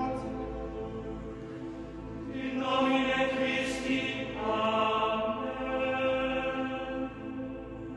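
Background music of long, held chant-like notes, with the pitch changing about two and a half seconds in and again near the middle.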